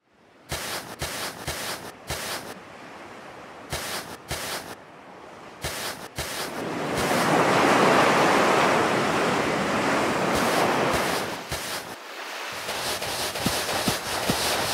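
Ocean surf: waves rushing in and washing back, swelling loudest in the middle. A run of short sharp taps comes before it, and a patter of small clicks after it.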